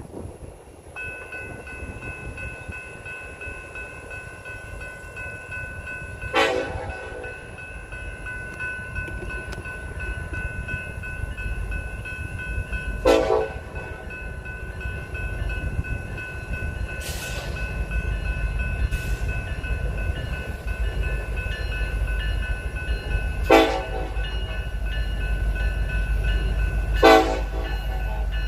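Union Pacific diesel locomotive approaching, its low rumble growing louder, sounding four short blasts on its air horn.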